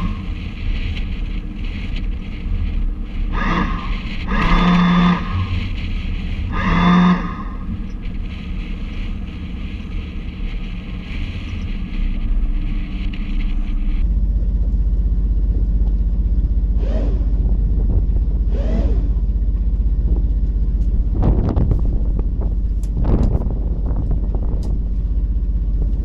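Soft background music with a few held notes, then a sudden change to wind buffeting the microphone over a steady low rumble aboard a small motorboat.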